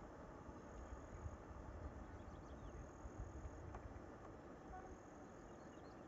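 Faint high-pitched insect trilling that comes and goes in stretches of about a second, over a quiet low background rumble.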